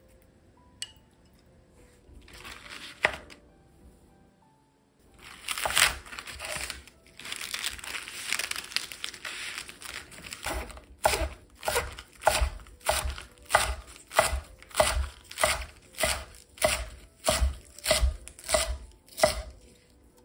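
Crisp rustling of lettuce leaves being handled. Then a chef's knife slices through folded lettuce onto a wooden end-grain cutting board in a steady run of about two cuts a second, each cut ending in a knock on the board.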